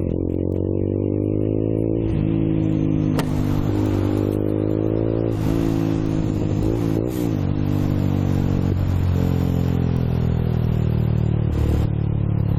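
Motorcycle engine heard from the rider's seat, rising in pitch and dropping back at each gear change as it accelerates, then easing off with a slowly falling pitch near the end. Wind rush grows as speed builds.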